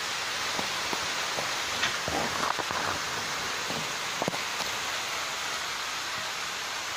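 Rain falling steadily in an even hiss, with a few louder close taps about two seconds in and again about four seconds in.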